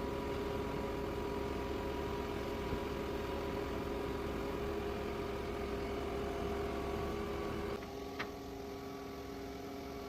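Engine of a truck-mounted concrete pump running steadily during setup, with a steady hum and whine; the sound drops a little about eight seconds in, followed by a single short click.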